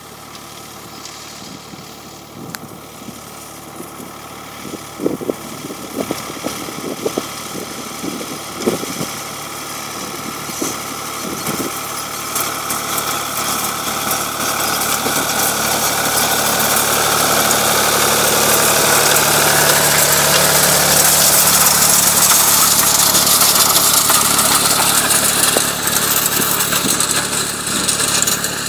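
Ford 4000 tractor engine running as it pulls a hay rake toward and past the listener. It grows steadily louder and is loudest about two-thirds through. A few sharp knocks sound in the first half.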